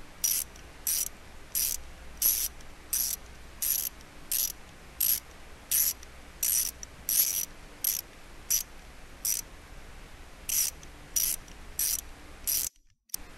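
Screwdriver sound effect: short ratcheting rasps of a screw being turned, repeated evenly about one and a half times a second, stopping shortly before the end.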